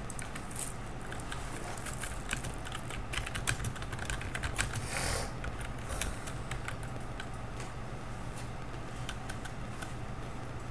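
Computer keyboard keys clicking in irregular runs of typing, over a steady low hum, with a brief rustle about five seconds in.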